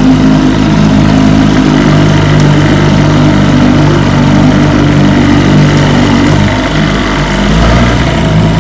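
1973 Johnson 25 hp two-stroke outboard running steadily under way, pushing the boat, over a steady hiss. The motor runs evenly after its ignition points were cleaned and wiring checked, which the owner thinks has fixed its missing and rough running at high speed.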